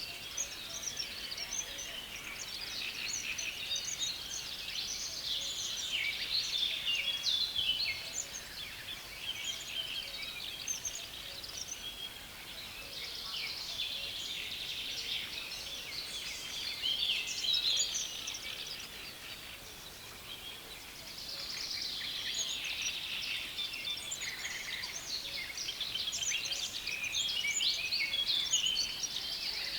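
A dense chorus of many small reed-bed birds chattering and chirping over one another without a break, the calls crowding together in busy swells and easing a little in between.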